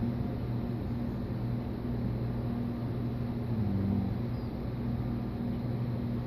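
Steady low hum of background machinery, with an even level throughout.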